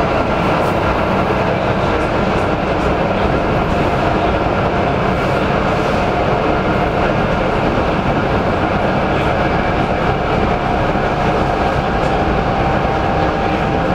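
Steady running noise inside the passenger car of an ET2M electric multiple unit travelling at speed: wheels on the rails and the car's motion, with a faint steady hum over it.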